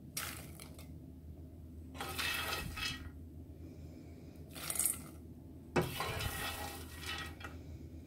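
Popped popcorn being scooped out of a non-stick frying pan with a spoon and tipped into a stainless steel bowl: four bursts of rustling and scraping, the last starting with a sharp knock about six seconds in.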